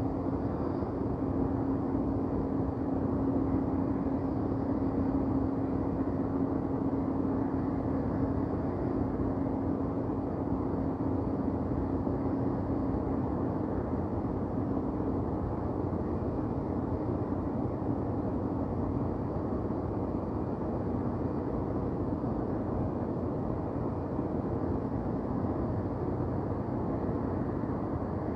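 Steady low rumble of downtown city traffic ambience, with a steady hum that fades about halfway through.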